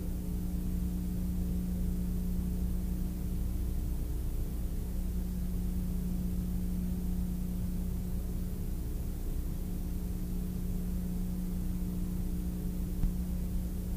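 Aerobatic plane's piston engine and propeller running, heard from inside the cockpit as a steady drone with a low hum, with one brief knock near the end.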